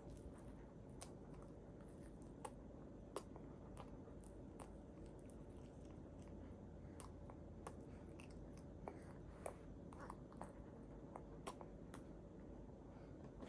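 A baby faintly chewing and biting on a crunchy rice puff cracker, with irregular small crunchy clicks scattered through.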